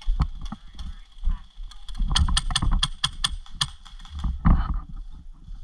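Airsoft gun firing a quick string of shots, about five a second for under two seconds, amid thumps of movement and gear handling.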